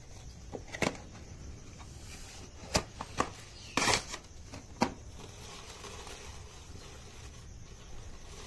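Scraps of paper and card being handled and fed into a paper fire in a clay chulha: a few sharp crackles and rustles over the first five seconds, the loudest a short rustle about four seconds in, then only faint steady background noise.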